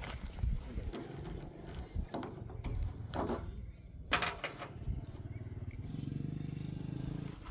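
Diesel engine running, with a few sharp knocks and clatters in the first half and a steady fast-pulsing hum near the end.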